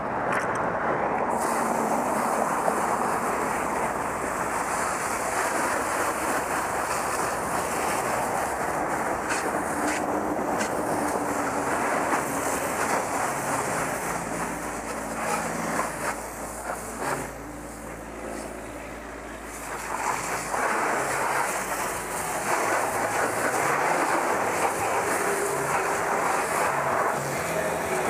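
Pressure washer spraying water onto a car's paintwork: a steady hiss of the spray with a low hum beneath, dropping somewhat quieter for a few seconds past the middle.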